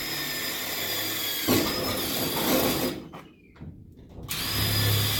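Powered rivet gun's motor whining as it pulls 3/16-inch rivets, with a sharp snap about one and a half seconds in as a rivet sets. It stops just before the three-second mark and starts again about a second later.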